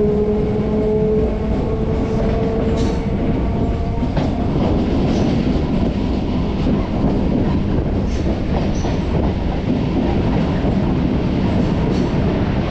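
MEMU electric train running on the line: a whine that rises slightly in pitch over the first few seconds fades into the steady rumble of the wheels on the rails, with faint clicks.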